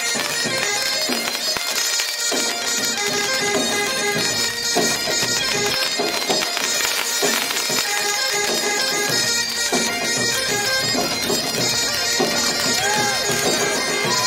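Bagpipes playing: steady drones under a chanter melody, with a few sharp cracks and some rising-and-falling whistling tones near the end.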